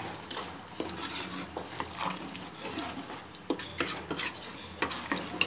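Steel spoon stirring chickpeas in a thin, watery gravy in a metal pot, with irregular scrapes and clinks of the spoon against the pot.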